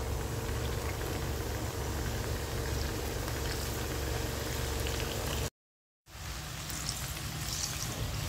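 Cheese-filled dough pastries (fatayer) deep-frying in hot oil: a steady sizzling and bubbling over a low hum. The sound drops out completely for about half a second some five and a half seconds in, then resumes.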